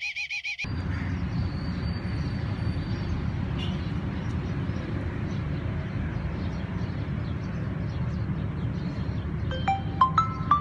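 A warbling electronic alarm tone cuts off under a second in, followed by a steady low rumble of noise. A few short bell-like notes, the start of music, come in near the end.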